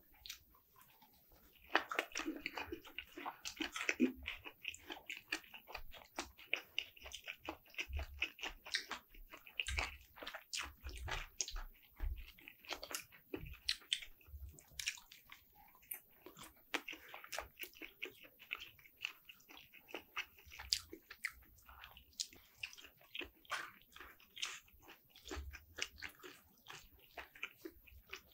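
A person chewing slices of smoked turkey up close, with many soft, irregular wet mouth clicks. It starts after about a second and a half of quiet.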